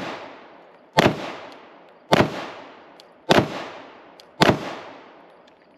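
Slow, steady semi-automatic fire from an AR-15-style 5.56/.223 rifle. There are five shots about a second apart, the first right at the start, each leaving a long echoing tail that fades before the next.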